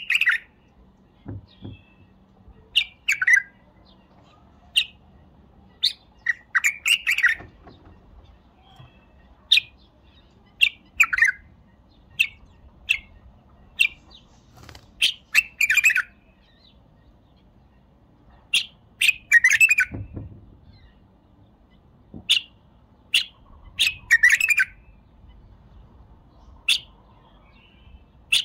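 White-eared bulbul singing: loud, short whistled notes and brief phrases repeated every second or two with pauses between, and a few longer phrases.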